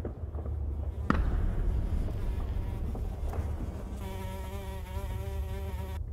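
Low rumble with a sharp bang about a second in, then a housefly buzzing in flight for about two seconds, wavering slightly, stopping as it lands.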